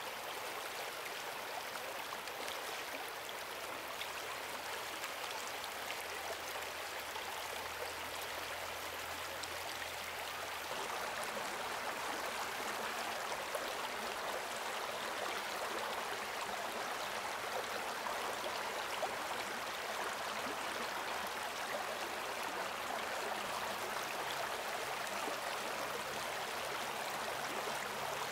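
Stream water flowing, a steady rushing that grows a little louder after about eleven seconds.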